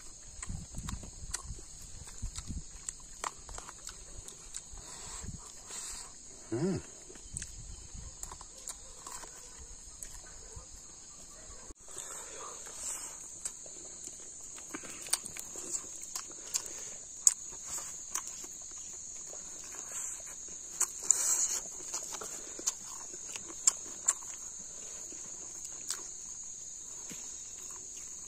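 Close-up eating sounds of rice being eaten by hand: chewing and lip-smacking with short sharp clicks. Under them runs a steady high drone of insects.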